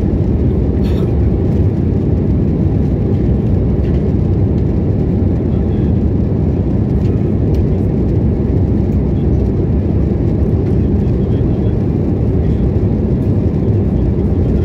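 Aircraft engine and airflow noise: a steady low rumble that holds an even level, with no rise or fall in pitch.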